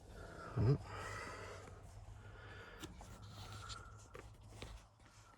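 Faint rustling and scattered light clicks of handling, with a short low thump about half a second in over a faint steady hum.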